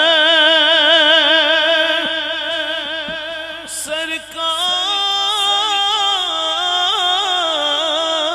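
A male naat reciter singing long held notes with a wide vibrato. About four seconds in he breaks off briefly, then takes up a higher note that climbs and falls in steps.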